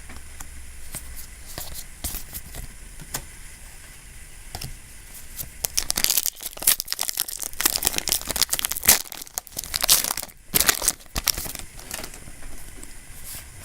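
A trading-card booster pack wrapper being torn open and crinkled, with cards being handled. Light scattered clicks come first, then a dense run of tearing and crinkling from about the middle until near the end.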